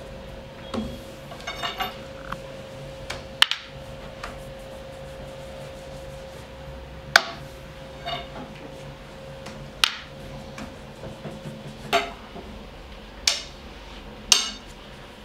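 Wooden rolling pin knocking and clacking on a wooden board as yufka dough is rolled out. The knocks come at irregular intervals, with a short quick rattle about two seconds in, over a steady hum.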